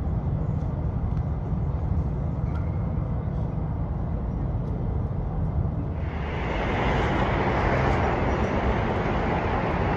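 Steady road traffic noise with a low rumble, turning louder and hissier about six seconds in.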